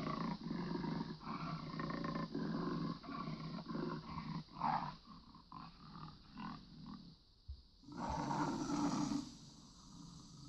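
Jaguar roaring and growling sound effect: a run of short rasping roars, then a louder roar about eight seconds in.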